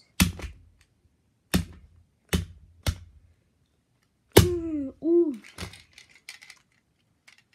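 A stick repeatedly striking a toy model car on a carpeted floor, to crack its plastic windows: six sharp hits at irregular gaps, the loudest about four and a half seconds in.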